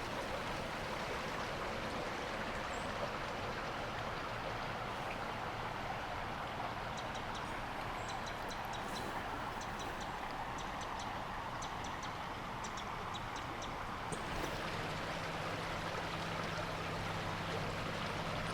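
Steady rushing of flowing creek water, with a few faint high ticks in the middle stretch.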